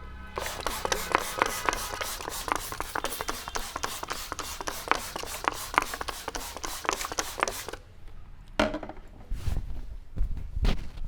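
Rapid rhythmic hand slaps and taps of a head massage, about five a second for some seven seconds, then stopping. A few single sharp slaps or cracks follow near the end.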